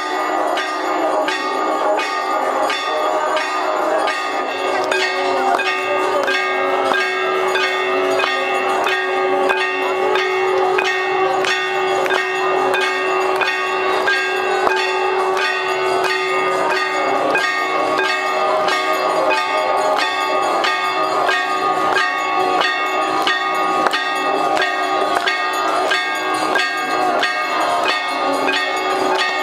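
Brass temple bells rung fast and without a break during an evening aarti, the strokes coming several times a second. A held tone runs underneath for about the first half.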